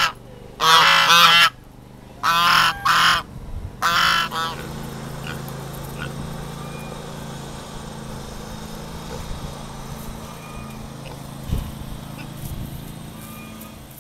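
Domestic white geese honking: a run of loud, harsh calls over the first four seconds or so, after which the calls stop and only a steady low hum remains.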